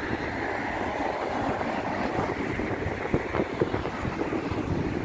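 Cars driving past on a city street: steady tyre and engine noise, with a few sharp clatters about three seconds in.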